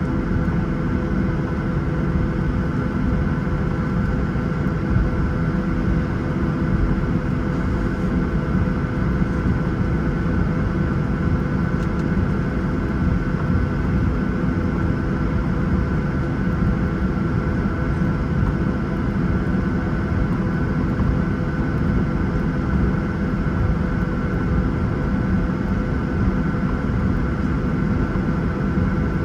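Cabin noise of a Boeing 737-900ER on the ground with its CFM56-7B turbofan engines at steady low power: an even rumbling rush with a few steady whining tones, no rise in pitch or level.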